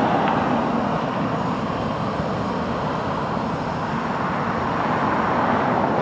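Union Pacific freight train approaching slowly, its lead diesel locomotives running with a steady rumble over the rolling of the wheels on the rails, growing a little louder near the end.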